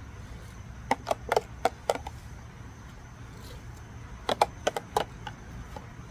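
Light clicks and taps of a metal spoon against a plastic sauce tub as sauce is scooped and spooned out. The taps come in two quick clusters, about a second in and again about four seconds in, over a low steady hum.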